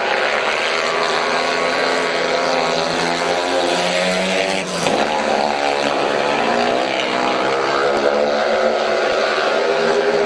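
Two speedway bikes racing, their 500cc single-cylinder methanol engines at full throttle, the pitch rising and falling through the bends. One bike passes close about halfway through, its pitch dropping sharply as it goes by.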